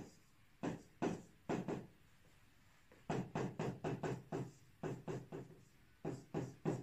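Writing strokes tapping and scraping on the glass of an interactive touchscreen board as Chinese characters are written. About twenty short taps come in three quick runs, with pauses between them.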